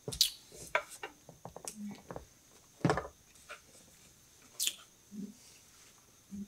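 Wooden meditation armrest board being handled and set in place: scattered clicks and taps of wood, the loudest about three seconds in.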